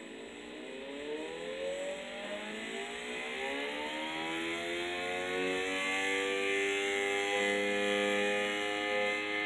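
3D-printed sensorless brushless DC motor whining under its speed controller, the tone rising in pitch over the first few seconds as the motor speeds up, then holding steady and growing slightly louder.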